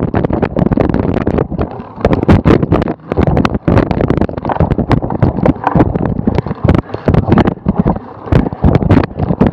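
Wind buffeting the microphone of a camera mounted on a cyclocross bike, with a constant, irregular rattle of knocks as the bike jolts over bumpy grass.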